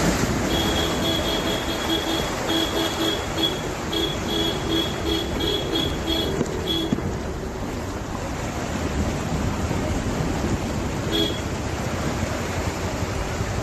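Steady rushing noise of fast-flowing floodwater. Over it, a pitched beeping tone repeats in short pulses for the first half, then once more briefly near the end.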